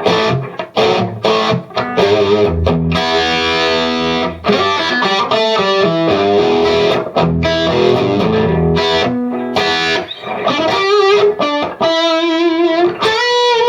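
Electric guitar played through a KONG 6810HW amp head into a Marshall 4x12 cabinet with Celestion Vintage 30 speakers, with the guitar's volume knob turned down a little: chords and riffs with some drive, ending on a held note with wide vibrato.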